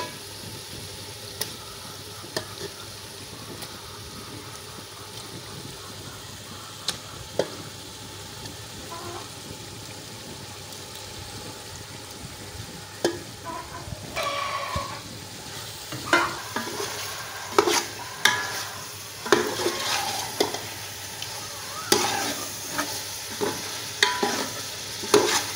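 Chicken pieces frying in oil and onion-tomato masala in a metal cooking pot: a steady sizzle, with a steel ladle stirring and scraping against the pot. The scrapes and clinks come only now and then at first and often in the second half.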